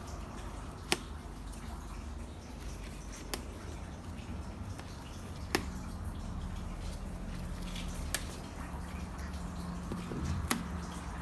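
Water dripping slowly and evenly, one drop about every two and a half seconds, five in all, over a steady low hum.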